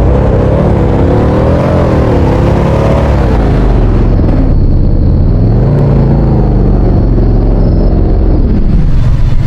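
Fire apparatus's engine accelerating, a heavy low rumble whose pitch climbs and drops back several times as it pulls away through the gears.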